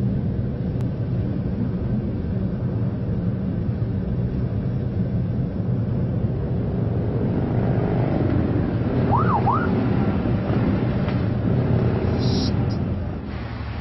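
Steady engine and road noise heard from inside a moving car. About two thirds of the way in, a brief whistle-like tone rises and falls twice.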